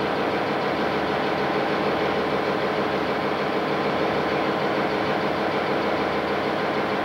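Diesel locomotive engine running steadily, heard close up from aboard the locomotive as it rolls along, an even drone with no breaks.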